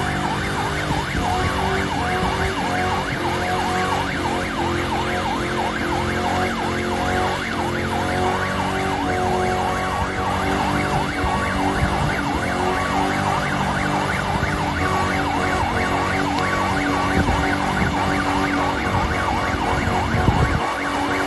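A 2006 Ford Crown Victoria's 4.6-litre V8 held at high revs in a burnout, rear tyres spinning on the gravel, with a siren yelping over it in quick rising-and-falling sweeps.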